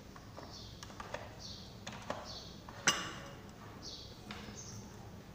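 Light clicks and knocks of an electric hand mixer being picked up and positioned over a glass mixing bowl, with one sharper click about three seconds in. A faint high chirp repeats about once a second in the background.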